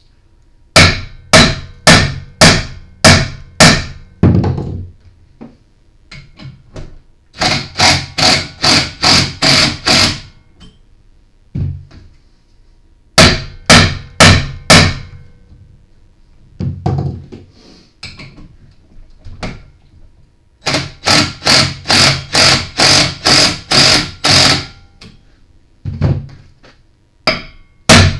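Hammer blows on the centre bolt of a flywheel puller tightened on a small engine's flywheel, in runs of quick strikes about two a second with pauses between. The puller is under tension and the blows are shocking the flywheel loose from the crankshaft.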